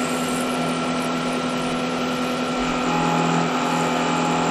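Manual milling machine running, its end mill plunged into a metal plate and cutting to finish a slot: a steady machine hum with several held tones, a little louder from about three seconds in.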